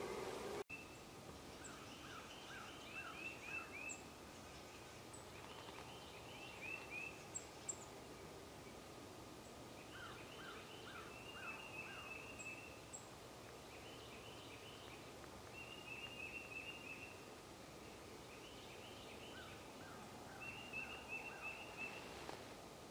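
Faint animal calls: short runs of four to six quick notes, repeated every couple of seconds, with a few thin, high chips between them.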